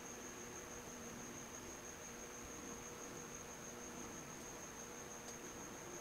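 Faint steady background: a high-pitched whine and a low hum, with one faint click about five seconds in.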